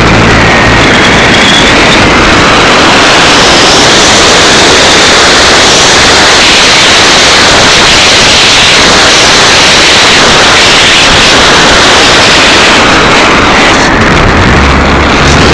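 Onboard camera microphone on an RC electric plane in flight: the 3548 electric motor and spinning propeller buzzing under a loud rush of wind, overloaded to a harsh hiss. A faint whine sits above it at first, and a steady low hum comes in near the end.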